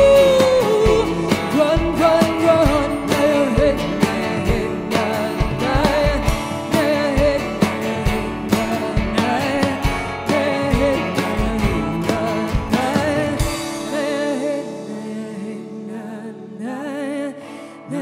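Live band music: a woman singing over acoustic guitars and a drum kit. About 13 seconds in the drums drop out, leaving a quieter stretch of held guitar tones and voice.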